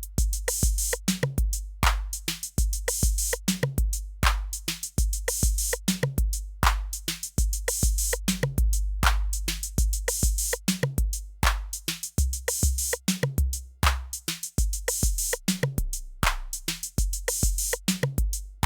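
Roland TR-8 drum machine playing a factory rhythm pattern on its 808-style kit, unprocessed. A deep, long-ringing kick drum lands about twice a second under crisp hi-hats and other sharp electronic percussion, and the kick drops lower in pitch for a few seconds past the middle.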